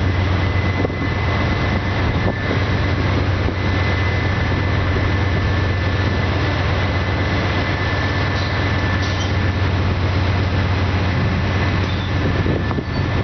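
Union Pacific diesel freight locomotives working under power, pulling a train away after a stop: a steady deep engine drone with a thin, steady high tone above it.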